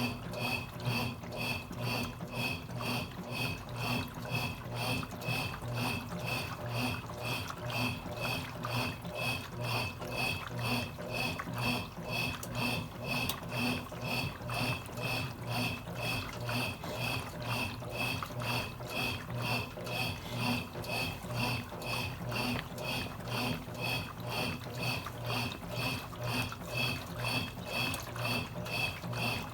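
Consul Cargo 8 kg washing machine running, with water sloshing and a regular high-pitched tick or squeak about three times a second over a steady low hum.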